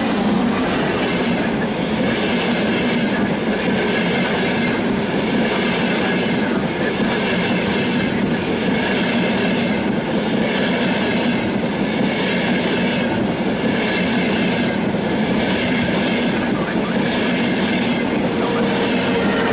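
A train passing close by: a loud, steady rush of wheels on rails with a regular, faint clatter repeating through it.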